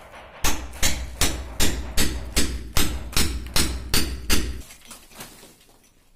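Hammer striking a steel chisel to chip the cement plaster of a wall around a buried PVC water pipe. About ten quick, even blows come at roughly two and a half a second and stop about four and a half seconds in.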